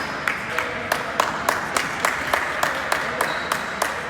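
Basketball being dribbled on a hall floor: a steady run of sharp bounces, about three a second.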